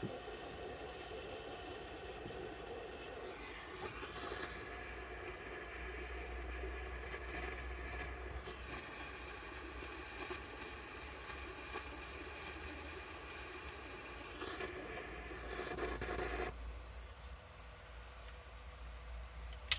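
Gas-powered hot-air soldering tool hissing steadily as it heats the solder on a circuit board. The hiss cuts off sharply about three-quarters of the way through.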